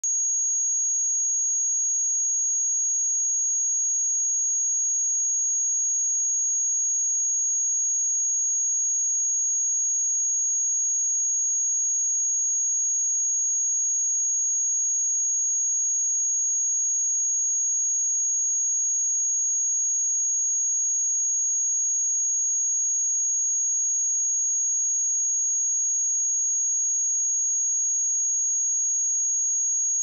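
A pure 6621 Hz sine-wave test tone, a steady high-pitched whistle held at one pitch and one level without a break.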